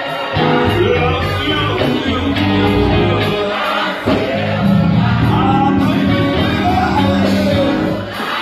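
Live gospel music: singing over a church band of keyboards, electric guitar and drums, with held bass notes.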